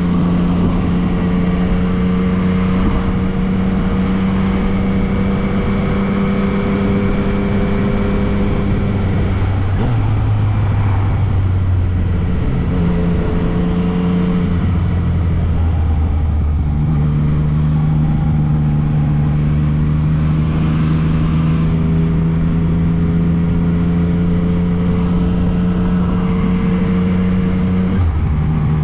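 Yamaha MT-09 motorcycle's inline-three engine running at a steady cruise, its note shifting a few times, about ten seconds in, around fifteen seconds and again near the end, over a constant rush of wind and road noise.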